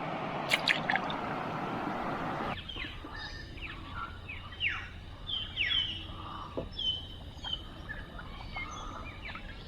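Running water with a few sharp splashy clicks. About two and a half seconds in it cuts off suddenly, and several birds call: short whistles and quick falling chirps.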